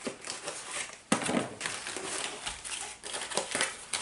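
Packaging being handled: irregular rustling and crinkling, with a sharper crackle about a second in.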